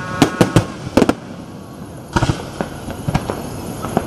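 Aerial fireworks shells bursting in a string of sharp bangs: a quick cluster of about five in the first second, a pair about two seconds in, then single bangs near three seconds and at the end.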